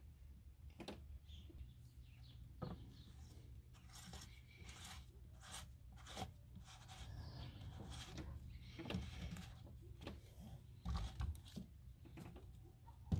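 Faint scattered clicks and rustles of a gloved hand screwing the plastic cap onto a freshly filled coolant expansion tank, over a low steady hum.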